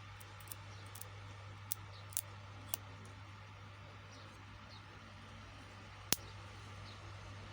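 Several short, sharp clicks, about six of them, the loudest about six seconds in, over a steady low electrical hum.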